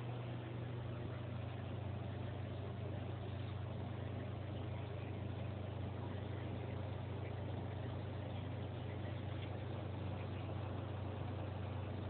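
Steady low hum under a constant hiss.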